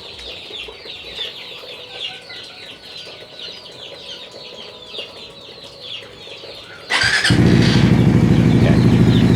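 Suzuki GSX-S150's 150 cc single-cylinder engine starting about seven seconds in and settling into a steady idle, heard through a made-to-order aftermarket exhaust. Before it starts there is a quieter, fast-repeating high chirping in the background.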